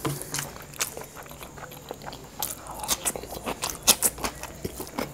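A man chewing a mouthful of food, with irregular wet mouth clicks and smacks.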